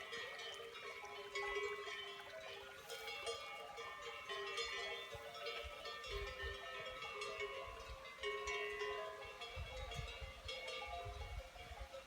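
Many cowbells clanking at irregular moments, their overlapping ringing tones blending into a continuous jangle, with a few low rumbles in between.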